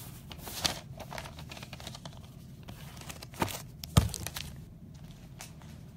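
Foil trading-card pack wrappers crinkling and cards being handled, with a few sharp taps as they are picked up off the table, the sharpest about four seconds in.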